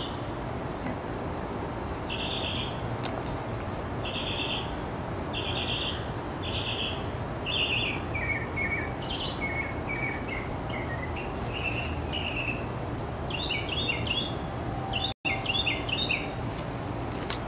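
A songbird singing: short chirping phrases repeated about once a second, then lower, varied notes and a quick chattering run near the end, over steady low background noise. The sound cuts out for an instant about fifteen seconds in.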